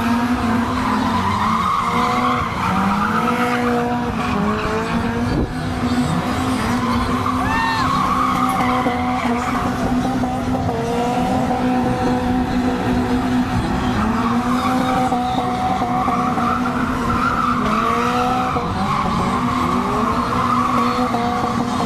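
Several drift cars sliding sideways on tarmac: engines revving up and down at high revs, with tyres squealing and skidding without a break.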